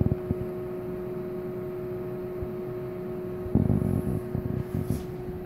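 Cooling fan of a powered-on Tektronix TDS 744A oscilloscope running with its cover off: a steady hum with a constant tone. A cluster of low bumps and rustles comes about three and a half seconds in.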